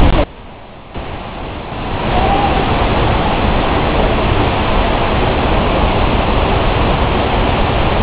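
Misol-Ha waterfall's falling water: a loud, steady rush of water pouring down close by. It drops away sharply just after the start and swells back to full level by about two seconds in.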